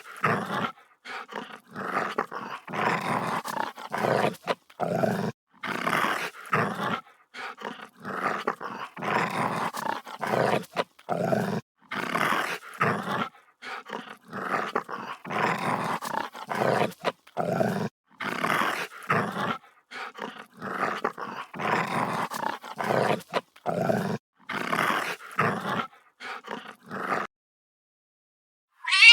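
An animal giving short, harsh calls over and over, about one or two a second, that stop shortly before the end.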